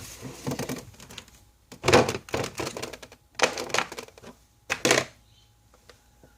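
Hard plastic clicks and knocks as a multimeter is fitted into its storage case, with the loudest knocks about two seconds in and again near five seconds, then handling goes quiet.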